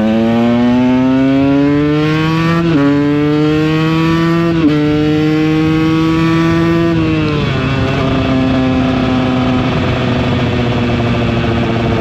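KTM 125 EXC's two-stroke single-cylinder engine accelerating under riding, its pitch climbing and dropping sharply at two upshifts, then easing off to a lower steady note for the rest.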